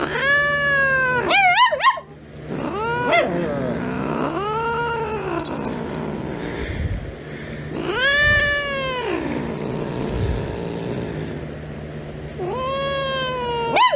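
A domestic cat meowing again and again: about five drawn-out calls a few seconds apart, each rising and then falling in pitch.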